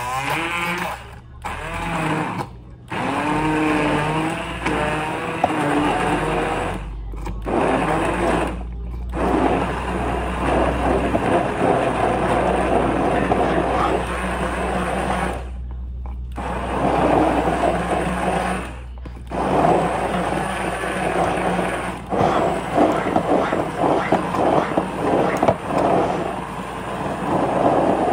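Corded handheld immersion blender running in a blending cup, puréeing its contents. It stops for a moment and starts again several times, and its motor pitch wavers in the first few seconds.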